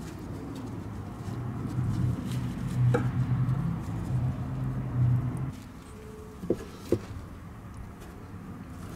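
Gloved hands working a tube of exhaust repair paste against the pipe: soft rustling and squelching handling noises, with a couple of sharp clicks about two-thirds of the way in. Under them a low hum swells for a few seconds and then fades about halfway through.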